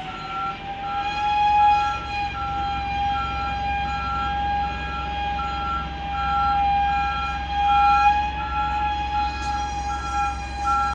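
A heavy vehicle's reversing alarm beeping steadily about twice a second, over a steady high-pitched whine and a low engine rumble as the machine moves. The sound cuts off suddenly at the end.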